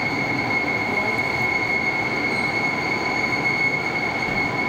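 Train running, heard from the passenger cabin behind the driver's cab: a steady rumble of running noise, with a steady high-pitched tone over it that stops near the end.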